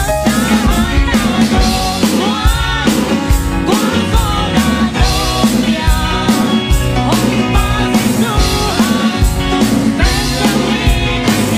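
Live band music: several vocalists singing into microphones over electric guitar, bass guitar and drum kit keeping a steady beat.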